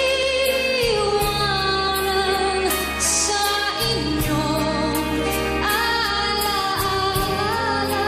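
A woman singing a slow song live, holding notes with vibrato, over band accompaniment with a steady beat.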